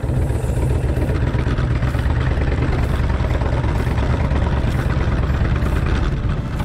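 Kawasaki Vulcan 1600's V-twin engine running steadily as the motorcycle is ridden, a constant low rumble.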